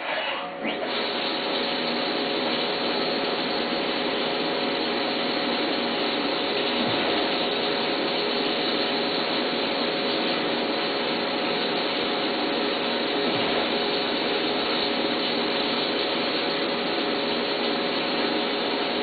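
CNC vertical mill cutting aluminum, its spindle turning a cutter through the block with coolant spraying. It makes a steady, even cutting noise with a constant whine in it.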